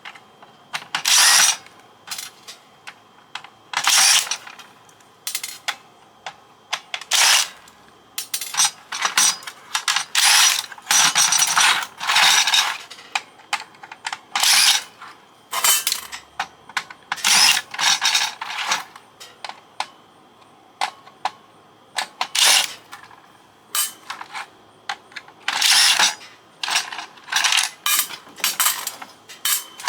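Ratcheting screwdriver clicking in short, irregular bursts of about half a second to a second each, as screws are backed out of a fax machine's housing.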